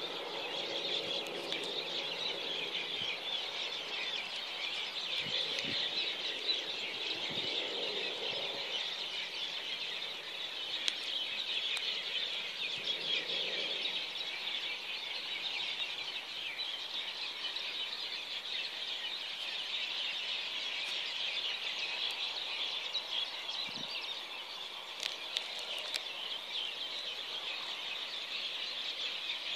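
Dense, steady high-pitched chorus of birdsong, with a faint low hum underneath in the first nine seconds or so.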